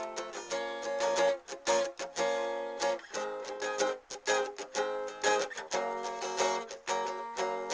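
Instrumental guitar music: quick, rhythmic strummed chords, broken by short pauses between phrases.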